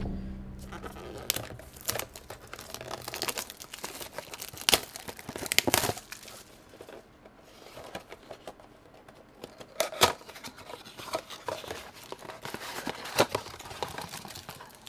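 Packaging of a Yu-Gi-Oh trading card box crinkling and tearing as the box is unwrapped and opened by hand, in a string of sharp crackles with a few louder rips.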